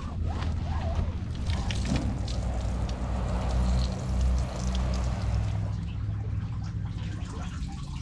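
Water from a hose spraying onto the hull of an inflatable dinghy, splashing and running off. The spray hiss is strongest from about a second and a half in until just before six seconds, then eases.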